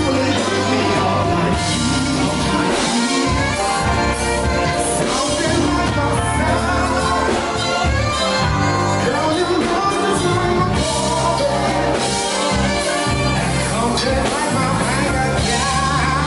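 Live band performing a song: a lead singer over electric bass, guitar and drums.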